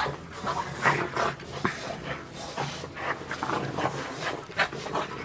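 French bulldogs panting with quick, irregular breaths as they play.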